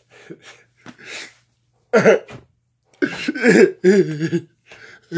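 A man making exaggerated wordless vocal noises: faint short huffs, then a loud sudden vocal burst about two seconds in, followed by a run of drawn-out pitched yelps and held wordless sounds.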